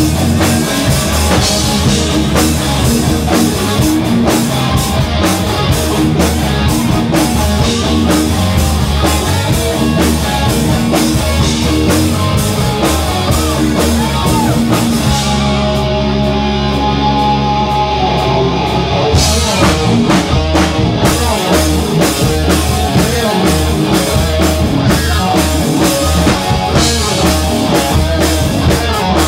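Live rock band playing loud: electric guitars over a pounding drum kit. About halfway through, the drums stop for a few seconds while the guitars hold long ringing notes, then the full band comes back in.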